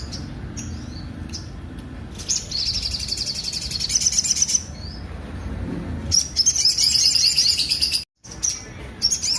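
Sogok ontong spiderhunter singing in a rough-toned voice: two long, rapid, high trills of repeated notes, each about two seconds long, with short calls between them. The sound cuts out for an instant about eight seconds in.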